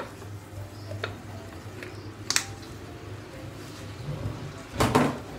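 Handling noises at a kitchen counter: a few light clicks and taps, then a louder knock about five seconds in, over a low steady hum.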